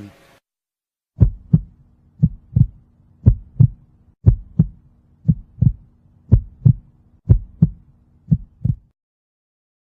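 Heartbeat: eight slow double thuds, lub-dub, about one beat a second.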